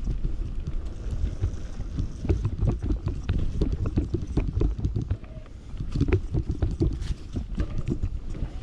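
Commencal Meta Power SX electric mountain bike riding fast over a dirt forest trail: tyres rumbling on the ground, with frequent clicks and rattles from the bike and wind buffeting the microphone.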